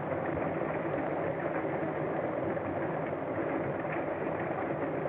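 A motor car engine running steadily, a dull, even sound without speech.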